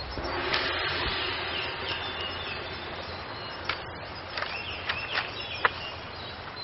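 Steady rush of a fast-flowing river, with birds chirping now and then and a few sharp clicks in the second half.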